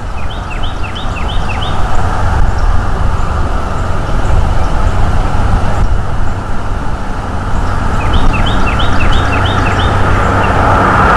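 Loud, steady wind rumble on the microphone. Over it, a small songbird sings the same quick phrase of about six short falling notes twice: once at the start and again about eight seconds in.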